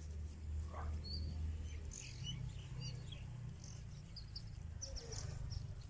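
Scattered faint, short bird chirps over a low rumble, with a steady high-pitched whine throughout.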